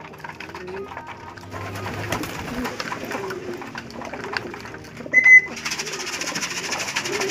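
Racing pigeons cooing, low rolling calls repeated over and over. About five seconds in comes a brief, loud, shrill tone.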